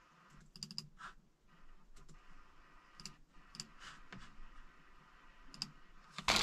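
Sparse light clicks of someone working at a computer in a small room: a quick run of four clicks about half a second in, then single clicks every second or so. A loud rushing noise starts abruptly at the very end.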